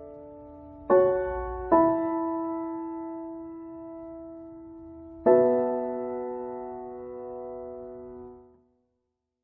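Background piano music: slow chords struck about a second in, again shortly after, and once more about five seconds in, each left to ring and die away. The music fades out to silence near the end.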